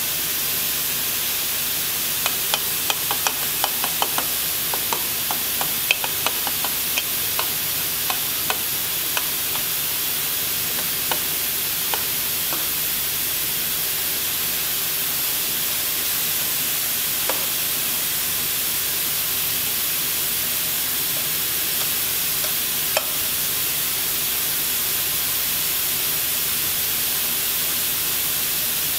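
A metal spoon clinking lightly against a stainless steel milk pitcher and a glass as milk foam is spooned onto a drink. A quick run of small clicks comes in the first several seconds, then only an occasional click, over a steady hiss.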